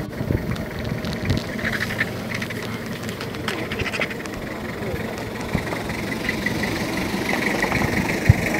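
Vultures squabbling over a carcass, giving rattling, chattering calls several times over a low steady rumble, with knocks and rustling from the scrum.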